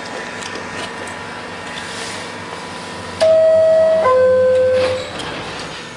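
Two-note falling chime, ding then dong, each note held just under a second, starting about three seconds in over a faint steady background.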